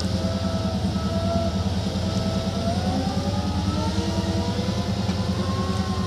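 Tata Hitachi EX210LC excavator's diesel engine running steadily with an even low pulse, and a whine over it that slowly rises and falls in pitch as the machine works its boom.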